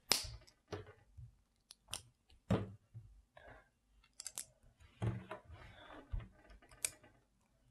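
LEGO plastic bricks being handled and pressed together: quiet, irregular small clicks and clatters, a few sharper snaps among them.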